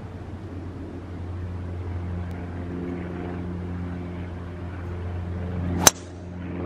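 A golf driver striking a ball off the tee: one sharp, loud crack about six seconds in. A steady low engine drone runs underneath.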